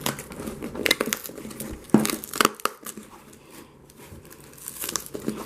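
Packaging being pulled off and crumpled by hand: irregular crinkling and tearing, loudest about two seconds in.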